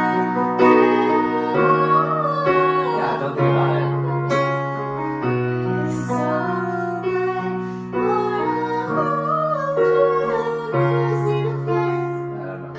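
A young woman singing a melody over held piano chords that change every second or two.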